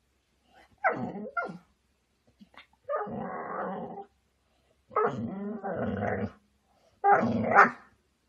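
Golden retriever growling and barking at its own reflection in a mirror, in about four bouts with gaps between: short sharp sounds about a second in, two longer growls, and the loudest bout near the end.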